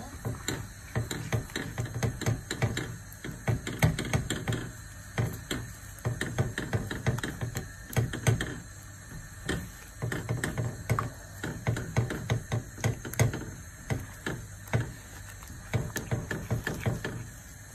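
Silicone spatula stirring and scraping through cream and melting chocolate in a nonstick pan, with many quick, irregular clicks and taps against the pan.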